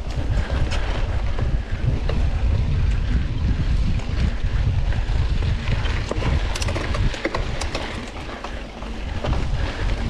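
Wind buffeting the microphone of a mountain biker on the move, a steady deep rumble, with scattered sharp clicks and rattles from the bike on the trail, most of them about six to eight seconds in.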